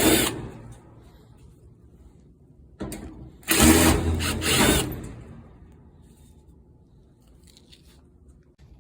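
Power drill-driver backing screws out of the dryer's panel: a short burst right at the start, then a longer run of about a second and a half a few seconds in.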